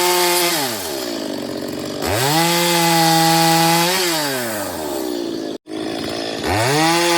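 Chainsaw engine revving to high speed three times, holding each time for about two seconds, then dropping back toward idle between cuts while sawing branches. The sound drops out briefly about two-thirds of the way through.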